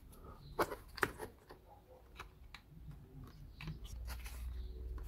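Thin laser-cut plywood model parts clicking and tapping as they are handled and pressed together by hand. Two sharper clicks come about half a second apart near the start, then scattered lighter ticks, with a low rumble near the end.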